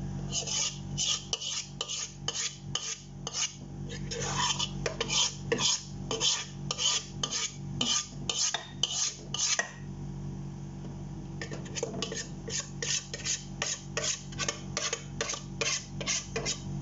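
A spoon scraping cake batter out of a stainless steel mixing bowl into a cake pan, metal scraping on metal in quick repeated strokes, about two a second, with a short pause about ten seconds in.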